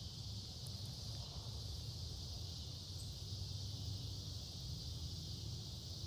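Evening insect chorus, a steady high even hiss of many calling insects, over a low steady rumble.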